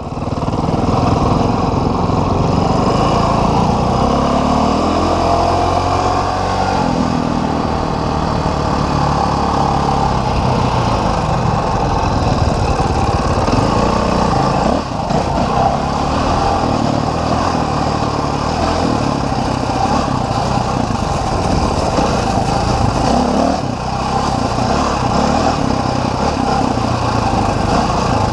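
Dirt bike engine running under way on a trail, its pitch rising and falling as the throttle is worked, with short dips about halfway through and again a few seconds before the end.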